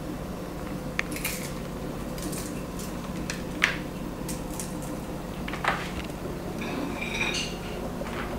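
Scattered light clinks and taps of plates and utensils being handled, with a brief ringing clink about seven seconds in, over a steady low hum.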